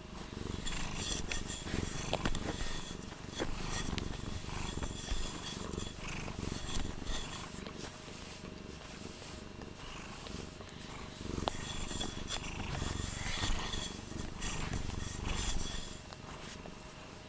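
Domestic cat purring right up against the microphone, a continuous low rumble, with the cat's fur rubbing across the microphone in rustles that come and go.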